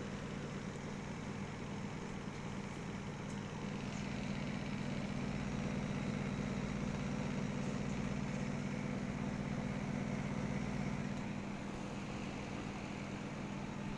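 A machine running steadily: a low motor hum with an even hiss over it, growing a little louder for a while in the middle.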